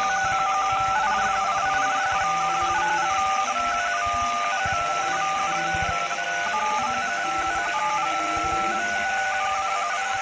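Emergency alert system alarm: a continuous run of two-tone beeps that change pitch every fraction of a second, like telephone touch-tones, over a steady bed of static hiss.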